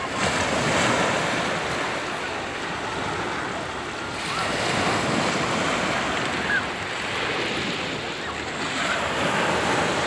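Small North Sea waves washing in over a beach thick with loose shells, a steady wash that swells and eases about every four to five seconds.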